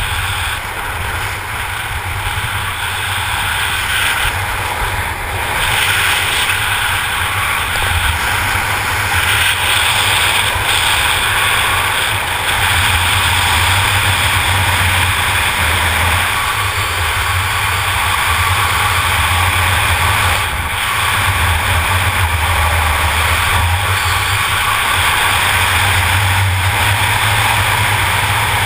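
Steady wind rushing over the camera microphone of a skydiver flying under an open parachute canopy, growing somewhat louder several seconds in.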